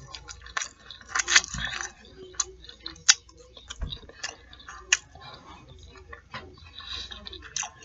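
Close-miked eating: chewing fried fish nuggets and fries, with sharp wet mouth clicks and smacks coming at irregular moments.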